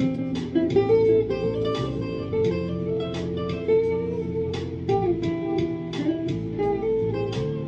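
Squier junior-size Stratocaster-style electric guitar played in a flowing line of picked notes, a moving melody over lower notes that ring on beneath it.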